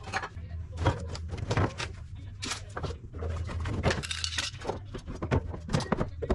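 Clutter being cleared from under a kitchen sink: a white wire rack basket rattling and scraping as it is slid out, with bottles and containers clinking and knocking in a quick run of sharp clatters. A low hum comes and goes underneath.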